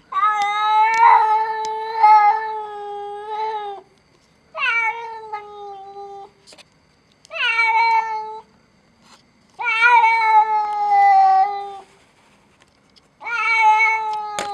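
Domestic cat meowing in long drawn-out calls, five of them lasting about one to four seconds each, the first the longest. Each call holds its pitch and sags slightly at the end.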